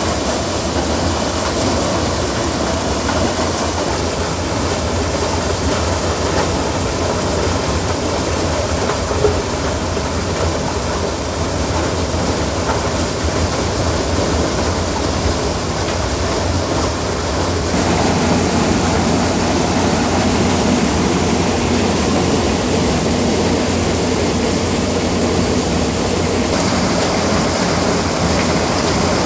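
Tractor-driven maize sheller-thresher running steadily while maize cobs are fed through it and threshed, a continuous loud mechanical din of the threshing drum and belts over the tractor's engine. The sound grows a little louder and fuller about two-thirds of the way through.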